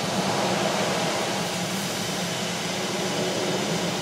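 Karcher Opti Wash 8000 in-bay automatic car wash spraying the vehicle in the bay with high-pressure water jets: a steady, loud rushing hiss.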